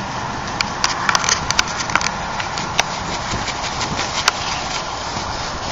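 Charcoal grill sizzling under nopal cactus paddles and foil-wrapped food over glowing coals: a steady hiss with irregular sharp pops, thickest in the first four seconds.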